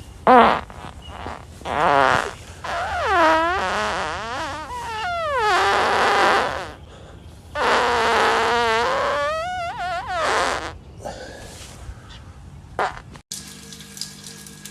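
A man farting several times: a short burst, then a run of long, pitched farts whose tone wavers and slides up and down, the longest lasting about three seconds.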